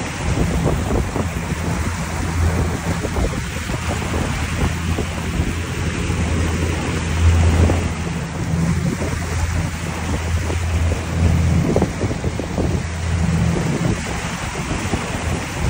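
Motorboat engine running with a steady low hum, with wind buffeting the microphone and water rushing past the hull.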